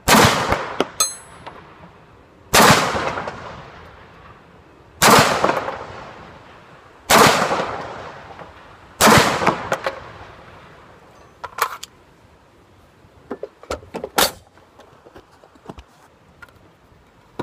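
Five suppressed AR-15 rifle shots, roughly two seconds apart, each a sharp crack trailing off in a long echo. A short high metallic ping follows the first shot, and a few lighter clicks and knocks come after the last one.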